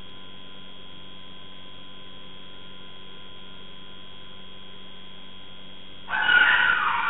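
Steady electrical hum with a few fixed whining tones from the security camera's audio. About six seconds in it is cut across by a sudden loud burst of shrill cries: a dog yelping in distress as a leopard seizes it.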